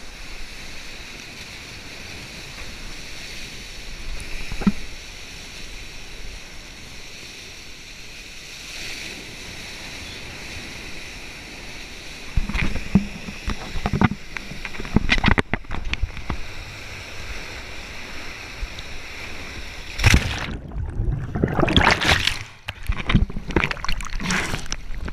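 Ocean water lapping and sloshing against a waterproof action camera in the surf. A few sharp splashes come about halfway through, then heavy splashing as the camera is dunked underwater over the last five seconds.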